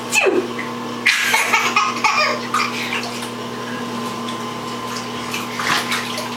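An adult's fake sneeze, one short falling 'achoo', then a baby laughing in short bursts for about a second and a half. A steady rushing noise runs underneath.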